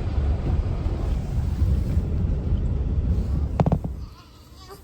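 Steady low rumble of a car driving, heard from inside the cabin. A short knock comes about three and a half seconds in, and then the rumble stops abruptly.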